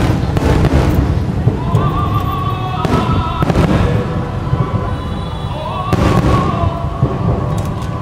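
Aerial fireworks bursting: several sharp bangs with crackle, near the start, about three seconds in and about six seconds in, over a continuous low rumble of further bursts, picked up by a phone microphone.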